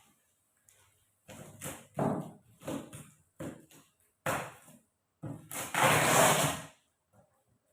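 Irregular knocks and short scraping or rustling sounds from handling a boxed metal rack and its packaging, with a longer, louder scrape about six seconds in.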